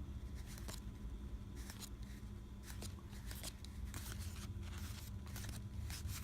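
Soft, irregular clicks and rustles of board-game cards being handled and flipped through, over a steady low hum.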